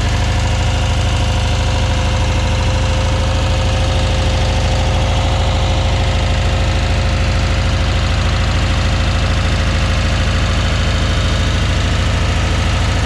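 1973 VW Westfalia Campmobile's air-cooled flat-four engine idling steadily just after a cold first start, heard close up in the open engine bay.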